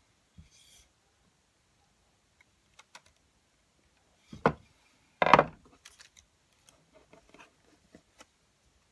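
Quiet handling of a wooden rolling pin rolled over a sheet of modelling paste on a stencil, with scattered faint clicks. Two sharp knocks about four and a half and five seconds in are the loudest sounds.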